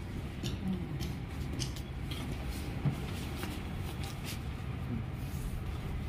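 Scattered light clicks and rustles from a rolled bamboo chick blind and its cord being handled, with one sharper click about three seconds in, over a steady low background rumble.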